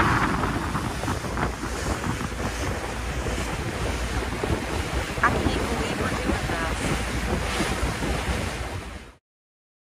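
Wind buffeting the microphone over the steady rush of a motor cruiser's bow wave hissing along the hull as the boat runs at speed across open water. The sound fades out about nine seconds in.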